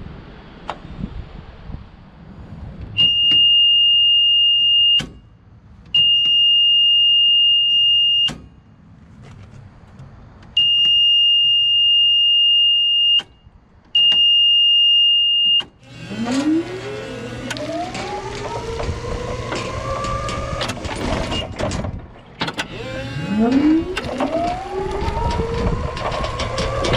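Small 36-volt electric forklift: its horn sounds four times, a steady high beep of about two seconds each. Then its electric motor whines, rising in pitch and levelling off, twice, over a steady low hum.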